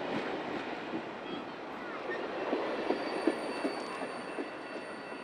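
Railroad cars rolling past on the rails: a steady wheel rumble with scattered knocks over the middle and a faint high-pitched wheel squeal.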